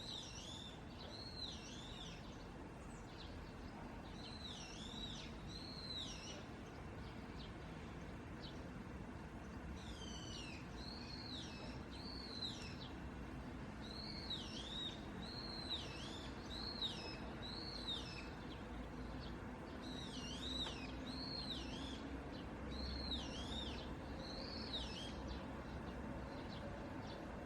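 Small birds chirping: short, high, arching notes repeated in clusters of two to four every second or two, over a steady low background hum.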